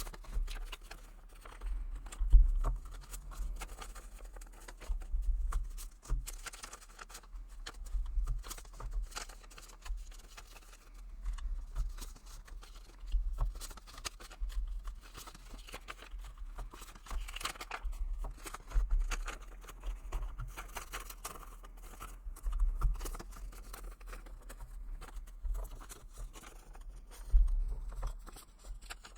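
Paper banknotes and envelopes being handled as cash is pulled out: rustling, crinkling and light clicks, with an occasional dull thump.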